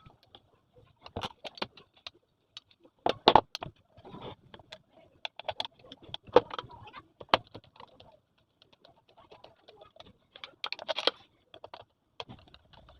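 Irregular clicks and knocks of metal ceiling-fan parts being handled and fitted together as the fan body is reassembled, with the loudest knocks a few seconds in and again near the end.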